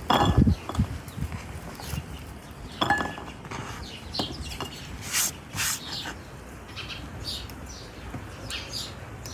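Peeled garlic cloves dropping into a ceramic bowl: a clatter of knocks at the start and another clink about three seconds in. Birds chirp in short calls through the second half.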